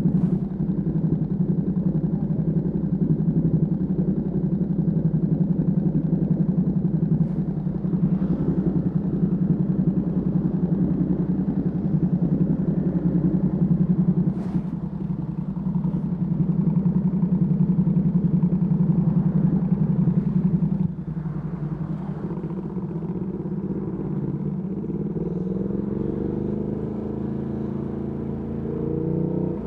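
Ducati Panigale V2S V-twin through a Termignoni exhaust, running at steady revs while riding. About two-thirds of the way through it drops back off the throttle, then revs rise in sweeps near the end as the bike accelerates again.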